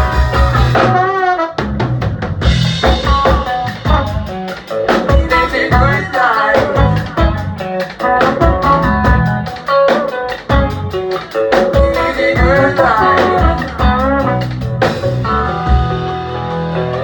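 Live rock band playing, with a drum kit's bass drum and snare hits driving the beat under guitar.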